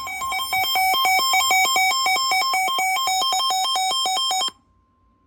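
Weather alert radio's electronic alarm sounding for a severe thunderstorm warning: a harsh two-tone warble that alternates several times a second, cutting off suddenly near the end, leaving a faint steady tone for a moment.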